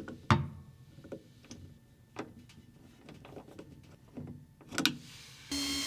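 Sharp metal clicks and knocks as the clutch motor and its bolts are handled and started by hand. About five and a half seconds in, a power drill starts running steadily with a held tone, driving the 10mm bolts down.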